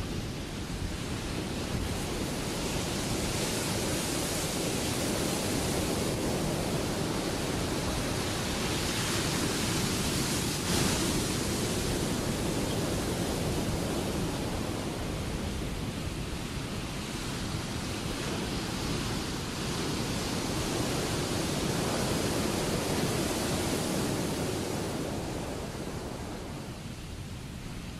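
Ocean surf: breaking waves making a steady rushing wash that swells and eases over several seconds, getting quieter near the end.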